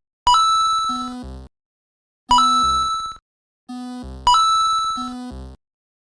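Cartoon level-crossing sound effect repeated three times, about two seconds apart, with dead silence between. Each time a bell-like ding rings out with a high ringing tone and then gives way to a few short, low buzzing tones.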